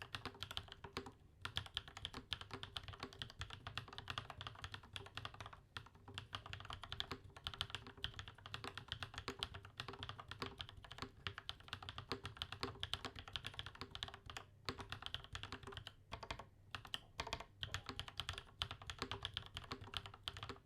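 Typing on a RAMA KARA mechanical keyboard fitted with lubed Durock POM linear switches and GMK keycaps: a fast, continuous stream of keystrokes with a few brief pauses.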